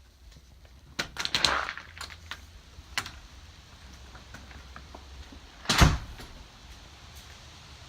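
A few sharp knocks and clicks, then one loud thump, over a steady low rumble of wind buffeting the phone's microphone.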